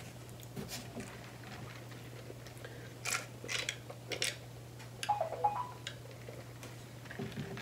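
Soft mouth sounds of eating and drinking: quiet chewing, then a few small clicks and gulps while sipping from a paper cup, over a steady low hum.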